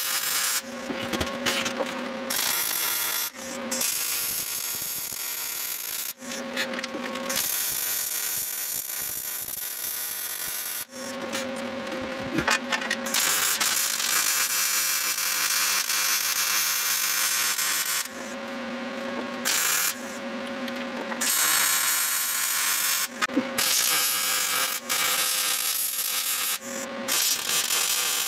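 Electric arc welding a steel mounting plate onto a vehicle frame: a steady crackling sizzle in several long runs, each broken off by a short pause.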